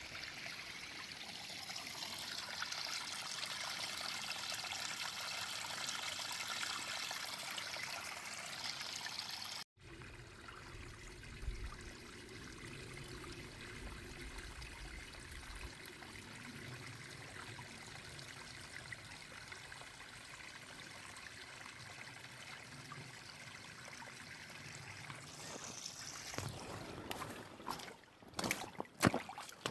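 Spring water trickling and running steadily. The sound breaks off sharply about ten seconds in and resumes a little quieter and lower. Several knocks and bumps come near the end.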